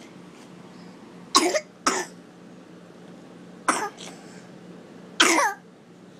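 Four short coughs: a pair in quick succession, then two more about a second and a half apart. The last is the longest and trails off in a falling note.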